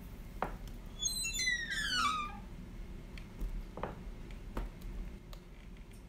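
Creaking door hinge: a squeal of about a second that falls in pitch, with a few faint knocks around it.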